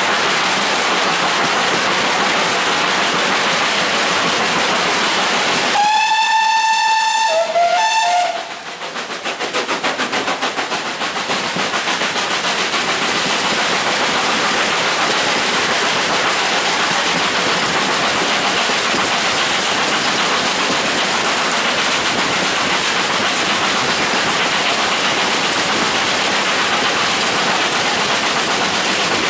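Steam train running, a steady rushing noise. About six seconds in, the whistle of GWR Hall-class locomotive No. 6988 Swithland Hall sounds for about two seconds, dropping to a lower note for a moment at the end.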